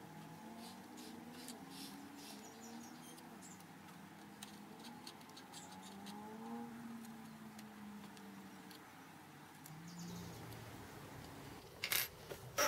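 Light ticks and clinks of steel machine rails being handled on a wooden workbench, over a faint wavering background whine, with a few sharp metal knocks near the end as a rail is set down.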